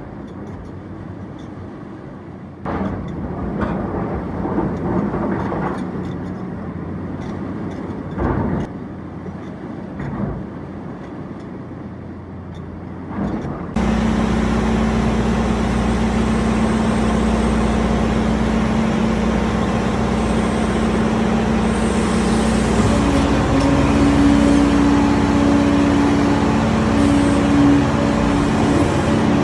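Heavy machinery engine running while an excavator works, with scattered knocks and clatters over the engine hum. About halfway through it cuts abruptly to a louder, steady engine drone with a held low tone.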